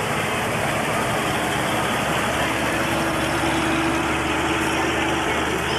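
A large vehicle's engine running steadily close by, with a held hum standing out from about halfway through to near the end.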